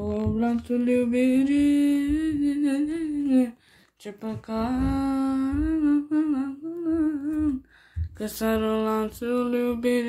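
A boy singing a wordless melody, humming or vocalising on a vowel. He holds long, wavering notes in three phrases, breaking off twice for breath.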